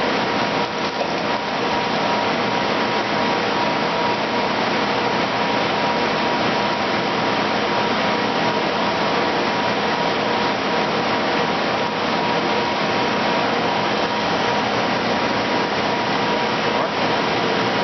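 Cincinnati No. 1 chucking angle grinder running under power, its wheel motor giving a constant whirring noise with a steady hum that does not change.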